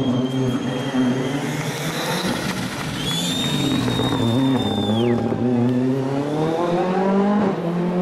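Ford Fiesta rally car engine revving hard through the stage, its pitch climbing steadily through the gears in the second half and dropping off near the end. A high whistle sits over it in the middle and falls away sharply.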